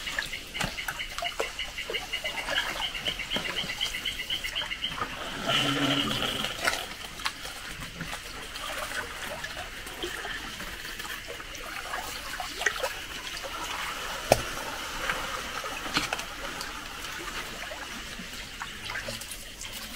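A paddle stirring and dipping in shallow swamp water, with gentle splashing and lapping. From about two seconds in, a rapid pulsing animal trill runs for a few seconds, followed by a brief louder low sound about six seconds in.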